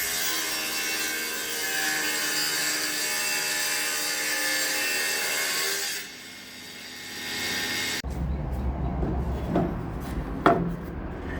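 Table saw blade cutting along the edge of a board for about six seconds, trimming off a blade-width strip to straighten it. The sound then changes abruptly to a lower background with two sharp knocks.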